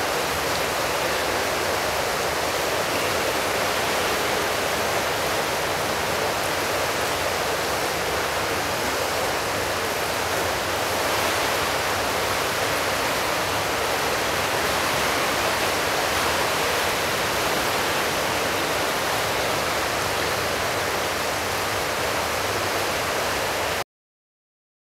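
Steady rushing noise of an indoor swimming-pool hall, an even hiss like running water that does not change, cutting off abruptly near the end.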